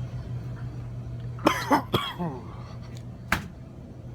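A person coughing: a double cough about a second and a half in, then a single short, sharp cough near the end, over a steady low hum.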